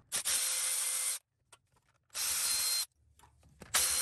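Milwaukee cordless electric ratchet running in three short bursts of about a second each with a steady motor whine, backing out the 10 mm coil pack bolts.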